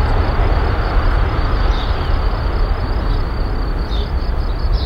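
Jet engines of a twin-engine airliner at takeoff thrust, heard from behind as it lifts off and climbs away: a loud, deep rumble that fades slowly.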